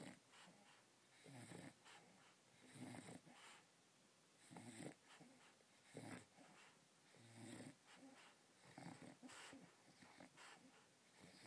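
English bulldog breathing noisily in its sleep, a rough breath about every one and a half seconds.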